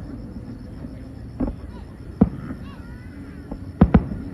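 Fireworks bursting over a steady low rumble: a bang about a second and a half in, a sharper one past two seconds, then two quick bangs close together near the end.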